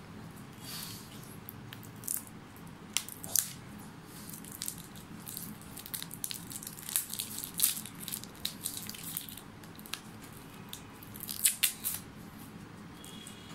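Plastic packaging crinkling and clicking as the pump top of a body-lotion bottle is unwrapped and worked free by hand. It comes as a run of irregular sharp clicks and rustles, with the loudest cluster near the end.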